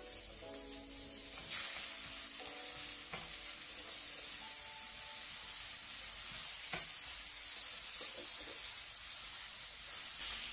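Potato slices sizzling steadily in hot oil in a frying pan, with a few light clicks as more slices are dropped in.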